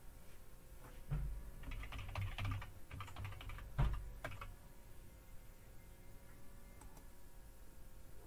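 Computer keyboard typing: a quick run of keystrokes lasting about three seconds as a password is entered, with the loudest key press a little under four seconds in.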